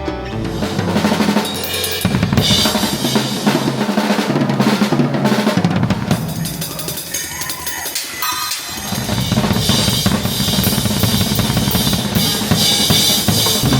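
Drum-heavy rock music: a full drum kit with bass drum and snare driving the band. About seven seconds in, the low end drops out briefly under a gliding sound, then the full band comes back in.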